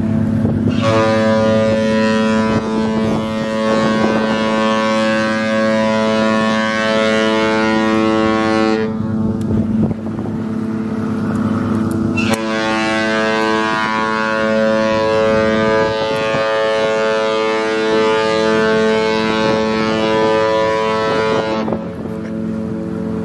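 Cruise ship horns sounding in a sail-away horn exchange. Two long, rich multi-tone blasts of about eight seconds each, with a pause of a few seconds between them, sound over a lower, steady horn tone that keeps going underneath.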